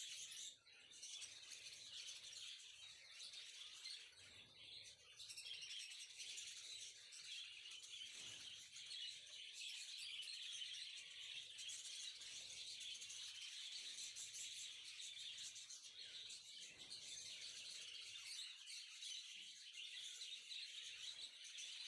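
Small birds chirping faintly and continuously.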